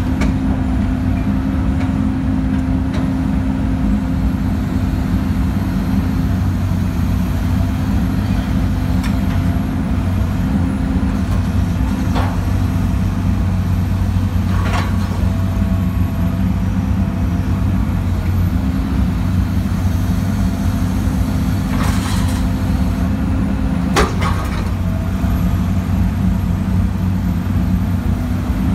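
John Deere 330 excavator's diesel engine running steadily, heard from inside the cab. A few sharp knocks cut through it, about 12, 15, 22 and 24 seconds in.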